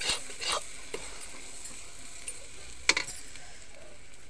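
Metal spatula scraping and stirring mashed green peas frying in oil in a metal kadhai, with a faint steady sizzle. There are a few scrapes in the first half-second and a sharp scrape about three seconds in.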